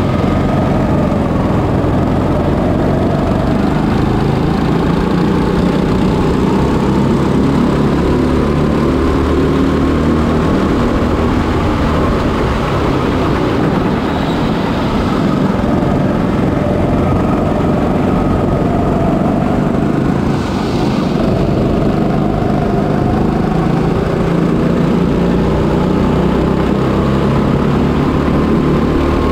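Kombikart Eco's single-cylinder Honda GX200 four-stroke engine running under load. The revs rise and fall as the kart drives through the corners.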